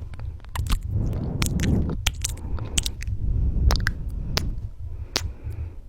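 Close-miked ASMR kissing sounds: sharp lip smacks several times a second over a low, uneven background.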